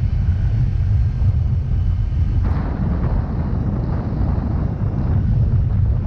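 Wind buffeting the microphone over the low drone of a Yamaha Mio Gravis scooter's 125 cc single-cylinder engine while riding. The rush of wind grows louder about two and a half seconds in.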